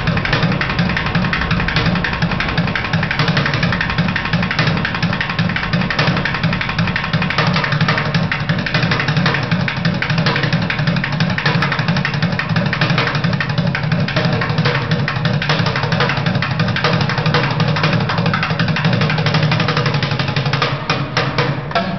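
Drums played fast and continuously, a dense stream of rapid strikes with a strong low body; near the end the strikes become sparser and more distinct.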